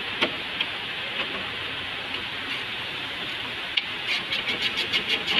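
Hand ratchet wrench clicking as bolts on the radiator support are undone: a few single clicks, then from a little past halfway a run of quick clicks, about five a second, over a steady background hiss.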